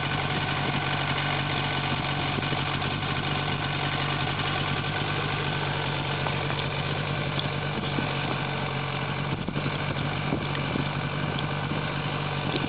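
An engine idling steadily, a constant low drone that does not change in speed.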